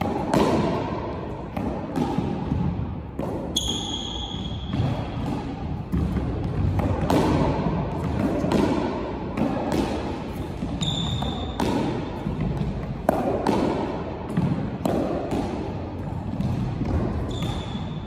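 Squash ball struck repeatedly: sharp racket hits and ball smacks off the court walls at an uneven pace, each echoing in the court. Sneakers squeak briefly on the wooden floor three times.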